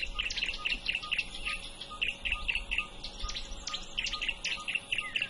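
Birds chirping with rapid, short falling chirps, several a second, over a steady high-pitched hiss and a faint, evenly spaced ticking.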